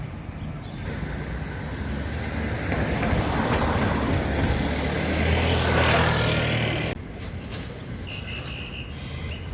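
Motor vehicle passing close by on a city street: tyre and engine noise builds over a few seconds, with a low engine hum loudest just before it cuts off suddenly about seven seconds in, leaving quieter street traffic in the background.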